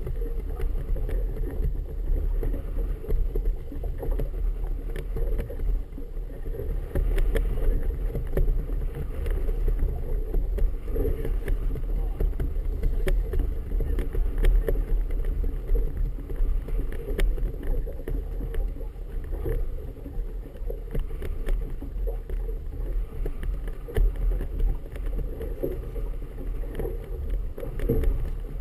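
Wind rumbling steadily on the microphone of a GoPro mounted on a boat on choppy harbor water, with scattered sharp snaps and knocks.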